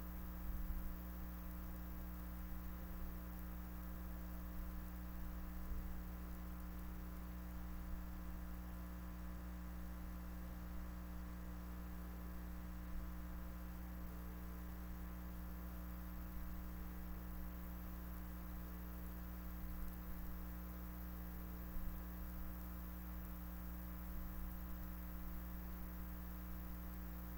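Steady electrical mains hum, a few fixed low tones over a faint hiss.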